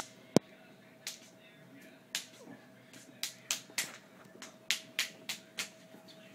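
A series of about a dozen short, sharp clicks and taps. A single loud click comes under half a second in, then a quicker run of clicks, about three a second, follows from about three seconds in.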